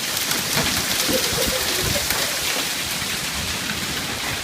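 Hail falling heavily: a steady, dense patter of countless small hailstones striking surfaces.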